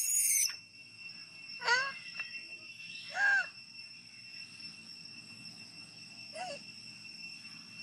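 Three short, high-pitched calls from a long-tailed macaque: the first, about two seconds in, falls in pitch; the second and loudest, a little after three seconds, rises and falls; the third, near six and a half seconds, is brief. A steady, high insect drone runs underneath.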